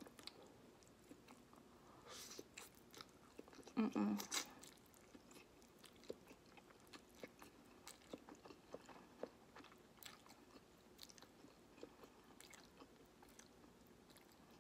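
Close-up mouth sounds of eating instant noodles: a louder slurp of noodles about four seconds in, with a softer one around two seconds, then quiet chewing with many small wet clicks.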